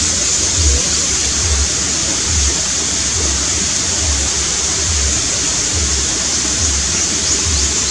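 Steady rushing of flowing water from a stream, with irregular low rumbles underneath.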